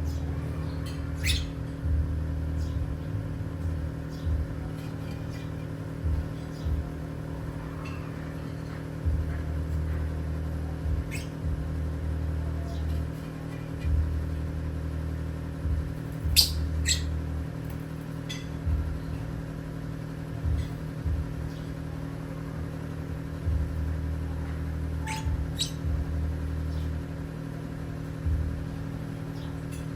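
Parrots giving scattered short, sharp chirps and squawks, a few louder ones a little past halfway and again later, over a steady low hum.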